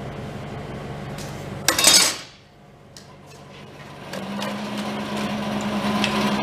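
Loud metallic clatter about two seconds in, steel pieces being handled or set down. A steady machine hum runs before it, and a slightly higher steady hum starts about four seconds in.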